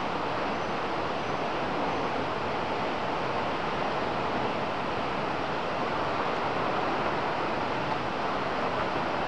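Steady rush of a waterfall, an even roar of falling water with no breaks.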